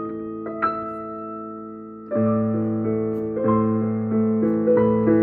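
Background music: soft piano notes, with fuller chords and a bass line coming in about two seconds in.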